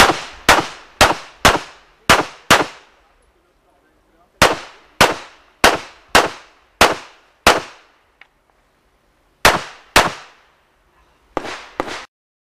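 9 mm Smith & Wesson M&P9 Pro pistol firing fast, about two shots a second, in three strings of six, six and two with short pauses between. A few quieter shots come near the end, then the sound cuts off suddenly.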